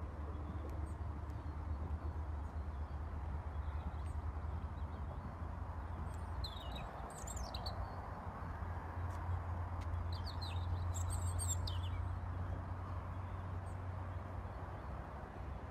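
Small birds chirping in two short bouts, about midway and again a couple of seconds later, over a steady low rumble.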